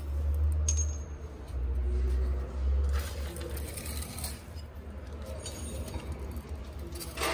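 Light metallic clinks and rattles from hands working around the steel cracker plate and drum knives, a few sharp taps spread through, over a steady low rumble of the camera being handled.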